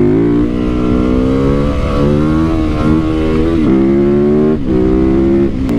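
Yamaha YZ450FX single-cylinder four-stroke engine running under way, heard from the rider's seat, its note dropping and climbing again a few times, about two, three and four and a half seconds in.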